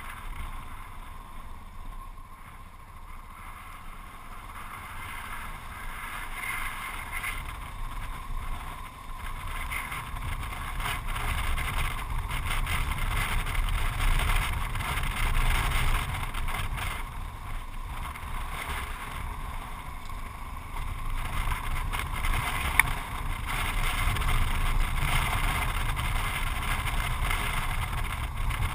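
Yamaha XT660Z Ténéré's single-cylinder engine running as the motorcycle rides along a gravel road, with wind on the microphone; the noise grows louder about a third of the way in, and a single sharp click comes about three-quarters of the way through.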